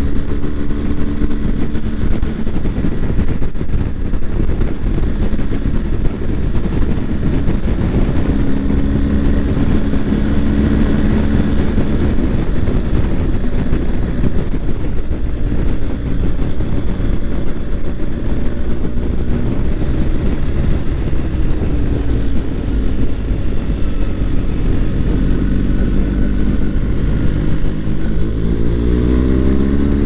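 BMW R1250 GS boxer-twin motorcycle engine running at road speed under the rider, mixed with a steady rush of wind and road noise. Near the end the engine note rises steadily in pitch as the bike accelerates.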